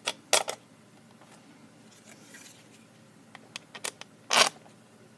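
Clicks and light knocks of a plastic RC helicopter blade balancer and rotor blade being handled and fitted together, with a brief soft rub about halfway and the loudest knock a little after four seconds.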